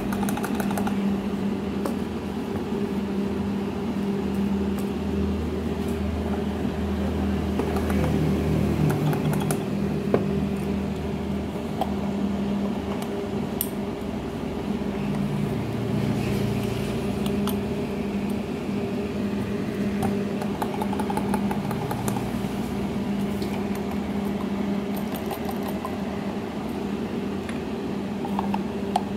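A steady low hum with a whir running under it, with a few faint clicks.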